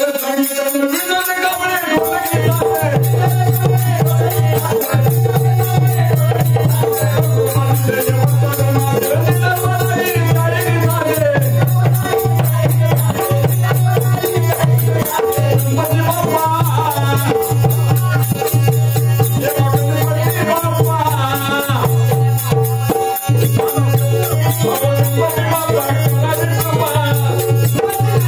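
Marathi shahiri folk song: a male singer's voice over a steady low drone that comes in about two seconds in, with a fast rattling, jingling percussion beat throughout.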